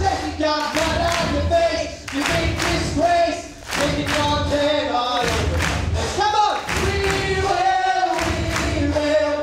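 A stage cast and chorus singing a rock number together, with a steady beat underneath.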